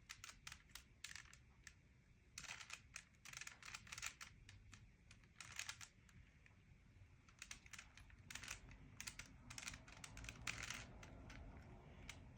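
Rubik's cube being twisted by hand: faint, irregular plastic clicks and clacks as the layers turn, coming in quick clusters with short pauses between.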